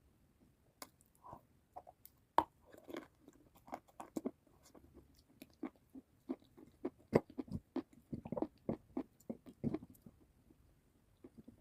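Close-miked eating: a person biting into and chewing crunchy food, with irregular sharp crackles and crunches between softer chewing. The loudest crunches come about two seconds in and again about seven seconds in.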